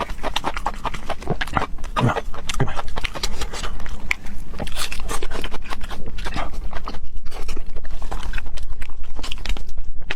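Close-miked wet chewing and open-mouthed lip-smacking of a person eating soft pig intestine stuffed with pig brain. The smacks settle into a fast, even rhythm of about five a second near the end.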